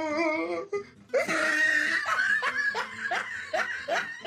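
A person laughing hard, a wavering laugh at first, then a loud run of breathy bursts about three a second.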